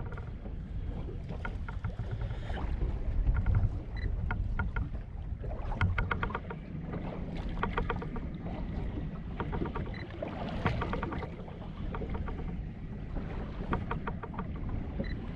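Wind and water noise around a small anchored fishing boat, a steady low rumble, broken by bursts of rapid clicking and rattling and a faint short high beep that comes back every few seconds.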